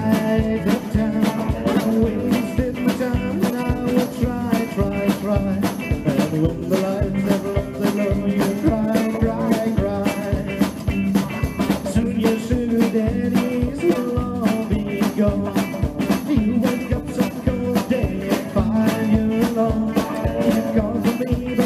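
Live rock and roll band playing an instrumental passage with no vocal line: electric guitars, upright bass and drum kit over a steady beat.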